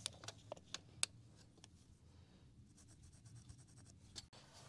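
Faint pencil scratching on lumber as measurements are marked out, with a few light clicks and taps in the first second.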